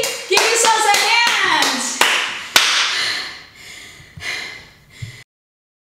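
A woman vocalising without clear words, with a few sharp hand claps, then a long breathy exhale. The sound cuts off abruptly to silence about five seconds in.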